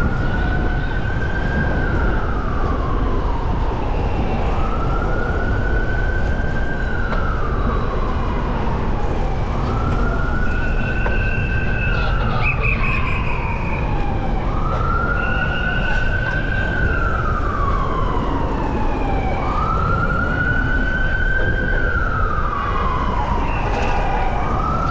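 An emergency vehicle's siren on a slow wail: the pitch rises, holds high, then falls, repeating evenly about every five seconds, over a steady low rumble of street noise.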